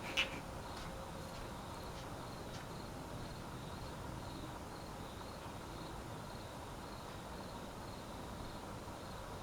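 A cricket chirping steadily, about three short chirps a second, over a faint steady hum.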